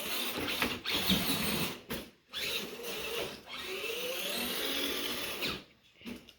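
Redcat Everest Gen7 Pro RC crawler's electric motor and geared drivetrain whining as it drives, the pitch rising and falling with the throttle. It cuts out briefly about two seconds in and again near the end.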